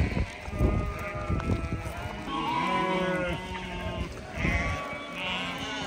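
A flock of sheep bleating, several calls overlapping, with a long low bleat about two seconds in and higher-pitched bleats over it and again near the end.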